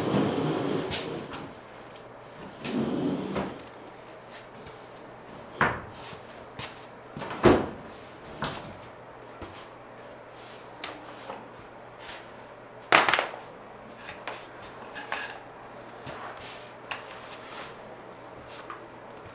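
Scattered knocks, clicks and clatters of things being handled, moved and set down while tidying, with two sharper knocks about seven and thirteen seconds in, over a faint low hum.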